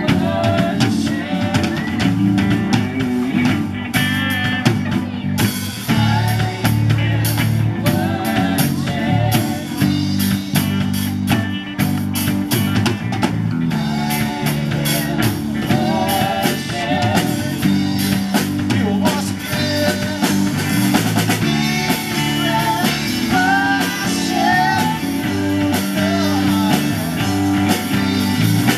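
Live rock-style worship band playing through a PA: drum kit and electric guitars under women's voices singing the melody, loud and continuous.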